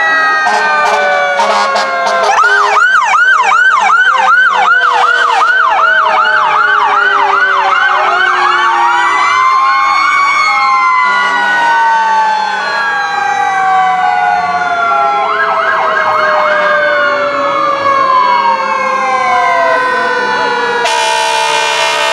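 Several emergency-vehicle sirens sound together as police and fire vehicles pass: a fast yelp at about four sweeps a second, with long slow wails rising and falling over it. A short, harsh blast comes near the end.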